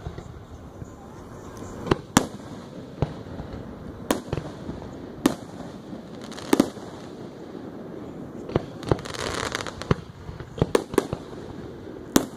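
Aerial fireworks shells bursting: about a dozen sharp bangs at irregular intervals, with a short stretch of hissing crackle a little after the middle.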